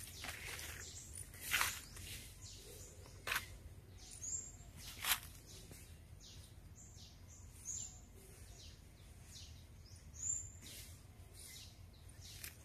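Footsteps crunching faintly through dry leaf litter, with three sharper crunches in the first five seconds. Short, high bird chirps sound now and then.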